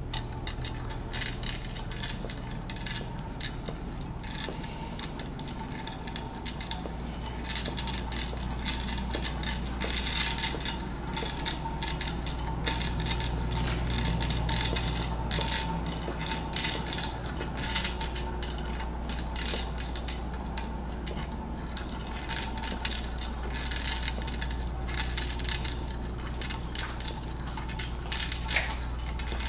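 Mousetrap car with paper-plate drive wheels rolling across a tile floor: a busy, irregular clicking and rattling from its axles and wheels, over a steady low hum.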